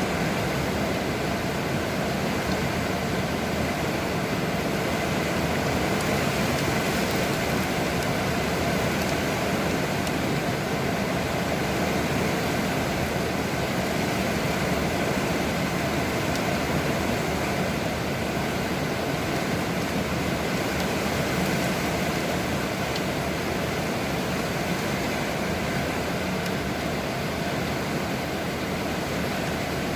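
Heavy rain falling steadily, an even rushing noise without a break.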